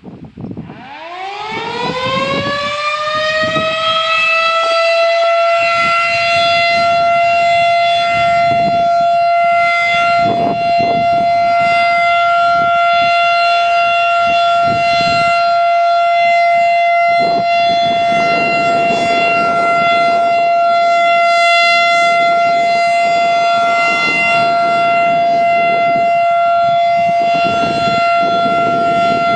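Federal Signal 2001-DC outdoor warning siren winding up from a low growl to a high pitch over about four seconds, then holding a steady tone. This is the steady alert signal of a scheduled siren test.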